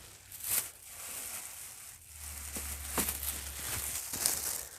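Clear plastic storage bag crinkling and rustling as it is handled and lifted, with irregular crackles throughout.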